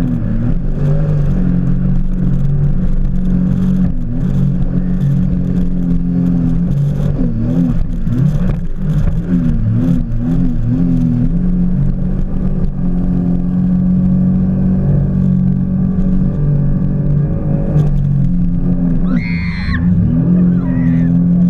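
Jet ski engine running steadily at speed, its pitch wavering as the craft rides over the water, with water splashing against the hull. A rider's voice cuts in briefly near the end.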